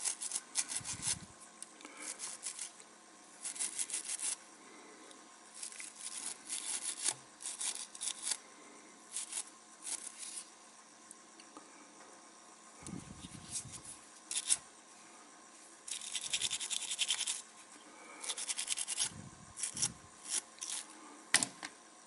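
Small brush scrubbing a butane lighter's piezo igniter unit in repeated bursts of quick scratchy strokes, with a few clicks as the part is handled.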